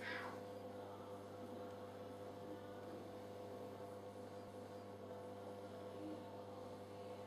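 Faint steady electrical hum with a low drone and a higher tone over it: mains hum in the room tone.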